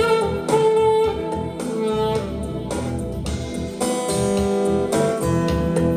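Instrumental music, acoustic guitar with saxophone, played back through Harman Kardon SoundSticks 4 multimedia speakers as a sound test. The saxophone holds long notes over the guitar's rhythm, and the music stops abruptly at the end.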